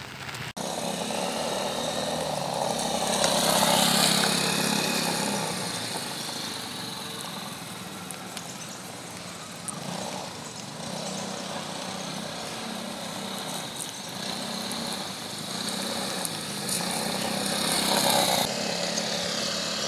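A motor scooter's engine running as it rides through a cone course on wet pavement, with tyre hiss from the wet surface. It gets louder twice as it passes close, about four seconds in and near the end.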